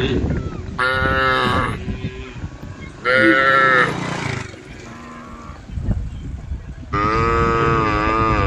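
Cattle in a herd mooing: three long, loud calls, each well over a second, the last still sounding at the end.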